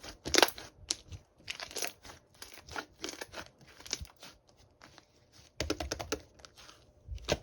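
Irregular crunching and rustling, with louder clusters about half a second in and around six seconds in.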